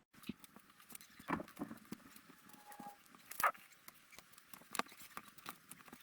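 LEGO plastic pieces being handled and clicked together: irregular sharp clicks and light taps, with the strongest about a second in, halfway and near the end.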